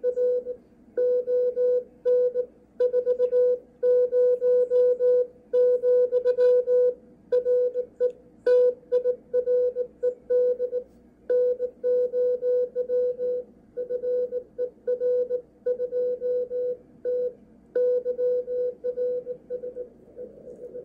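Morse code (CW) signal on the 40-meter amateur band, received by a Malahit DSP2 software-defined radio: a steady mid-pitched beep keyed on and off in short and long elements at a brisk hand-sending pace, over a faint bed of band noise.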